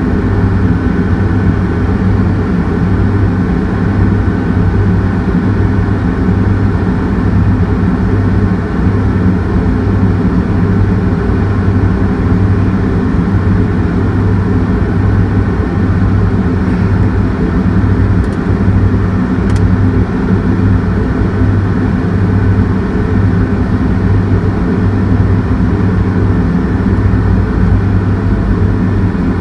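Heavy diesel engine running steadily at a constant speed: a deep drone with a regular low throb.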